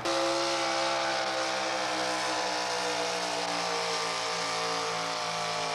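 Pulling truck's engine running hard at high revs under full load as it drags the pulling sled, cutting in abruptly and sinking slowly in pitch.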